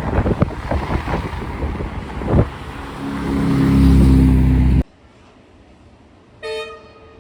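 Wind buffeting the microphone, then a long low horn blast that swells and cuts off suddenly; after a quiet moment, one short higher-pitched toot.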